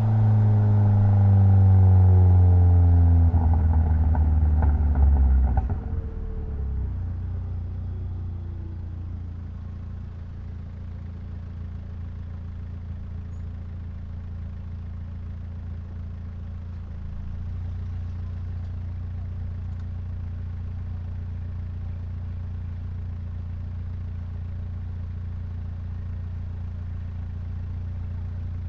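Mitsubishi Lancer Evolution X's turbocharged 2.0-litre four-cylinder engine winding down, its pitch falling over the first six seconds as the revs drop. It then settles into a steady idle, rising slightly in level about two thirds of the way through.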